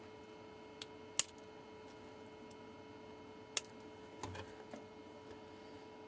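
A few sharp metallic clicks and light taps from tweezers and a small piece of nickel strip being handled against a battery pack's cells. The loudest click comes about a second in, and a softer knock and rustle follow at about four seconds, over a faint steady hum.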